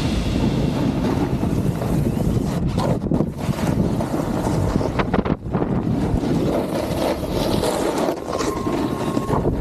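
Wind rushing over the microphone of a camera carried by a snowboarder riding fast downhill, mixed with the snowboard scraping over packed, groomed snow, with a few sharper scrapes about three and five seconds in.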